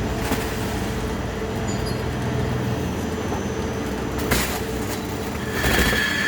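CNC lathe running steadily while turning a large bronze bushing, with a sharp knock about four seconds in. Near the end a loud, high, steady squeal starts.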